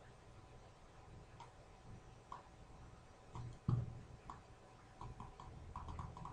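Faint, irregular clicking from the hand-held pointing device used to draw lines on a computer screen, coming faster near the end, with one louder low knock a little past halfway.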